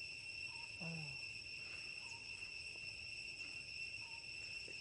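Steady high-pitched drone of forest insects, several unbroken tones at once. A short, low call falling in pitch cuts in about a second in, and a few faint brief chirps sound now and then.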